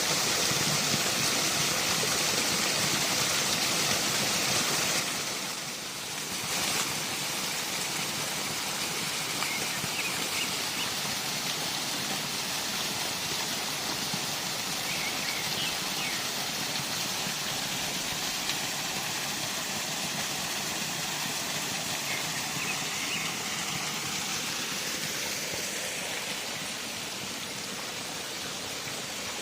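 Waterfall: a steady rush of falling water, louder for the first five seconds, then settling a little lower. A few faint, short high chirps come through now and then.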